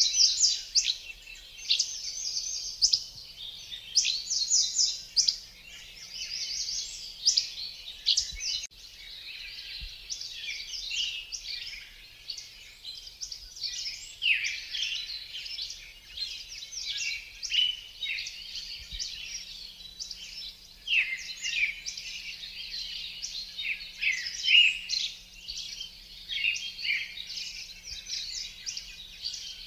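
Songbirds chirping and singing, many short quick calls overlapping into a busy, continuous chorus.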